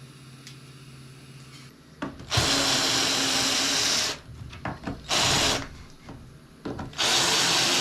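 Power drill running in three bursts: a long run, a short one, then another long run.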